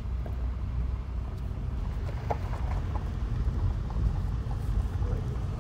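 Car driving on a gravel road, heard from inside the cabin: a steady low rumble of tyres and road noise, with a few light ticks.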